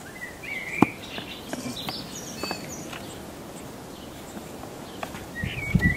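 Small birds chirping and calling, with a few light knocks and scuffs from a plastic tub being handled; the sharpest knock comes about a second in.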